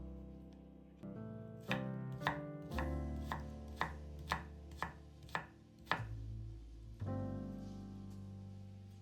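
Instrumental music: sustained chords over a bass line, with sharp percussive taps about twice a second through the middle.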